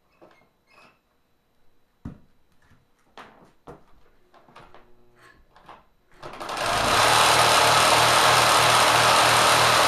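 A few light clicks and knocks of handling, then about six seconds in the 3/4 hp electric motor fitted to a Kenmore sewing machine spins up fast and drives it at high speed, running loud and steady.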